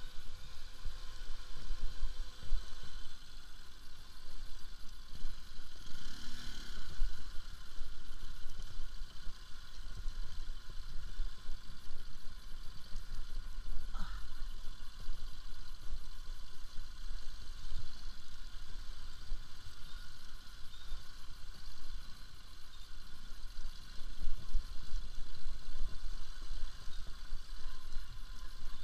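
Bajaj Pulsar RS200 motorcycle ridden slowly over a rough, stony dirt track. A steady low rumble with uneven jolts and clatter from the ride is picked up close on the rider's camera.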